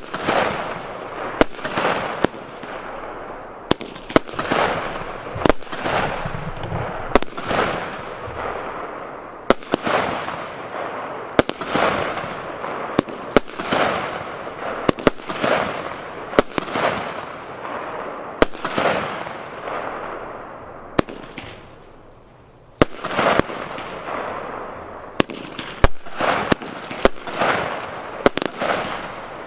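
A 19-shot, 25 mm consumer firework battery (cake) firing its shots one after another, about one every one to two seconds: each a sharp bang followed by a crackling hiss that fades away. There is a short lull about three-quarters of the way through before the last shots.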